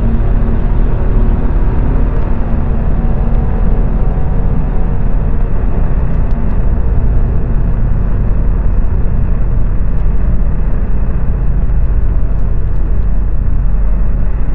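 Loud, steady low rumble: a dense noise with most of its weight in the bass and no beat.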